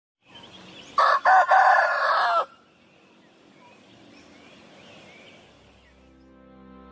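A rooster crowing once, loud, about a second and a half long with two brief breaks near its start. Soft music fades in near the end.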